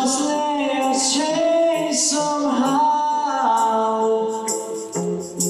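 A man singing into a handheld microphone with a melodic line of long held notes, amplified over a stage sound system.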